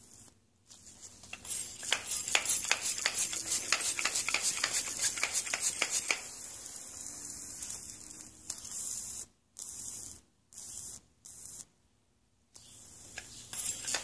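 Pressurised air hissing and crackling out of a leak in an Evinrude 60 HP outboard's lower-unit gearcase, pumped up with a gearcase pressure tester: the gearcase will not hold pressure. The owner thinks the damage came from water freezing in it or from a strike. A crackling hiss for several seconds gives way to a steadier hiss that cuts in and out near the end.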